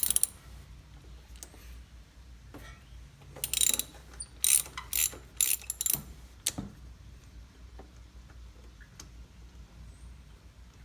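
Ratchet with a 5/8 inch spark plug socket clicking as it is swung back and forth, loosening a spark plug counterclockwise. There is a quick run of clicks at the start, then about five short bursts of ratcheting around the middle, then it goes quiet.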